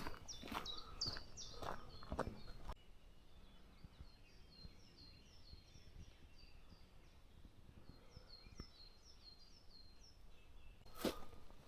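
Footsteps on a forest path for the first few seconds, then they stop and a songbird's quick, high, falling chirps carry on over quiet woodland; footsteps start again near the end.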